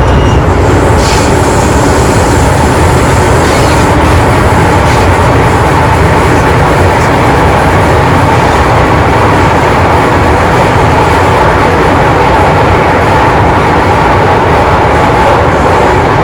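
MTR Island Line M-train electric multiple unit running at speed, heard from inside the car: a loud, steady rumble of wheels and rails with a faint steady hum.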